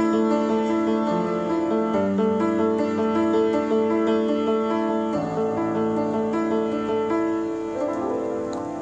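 Upright piano played solo: a melody over held chords, the notes ringing on, the playing growing softer near the end.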